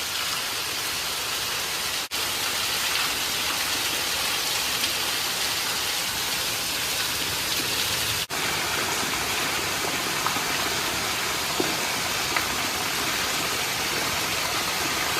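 Steady rain falling, an even hiss broken by two split-second gaps.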